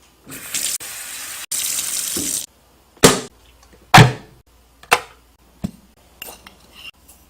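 Water pouring for about two seconds, louder in the second second, then cut off, followed by a series of sharp knocks, roughly one a second.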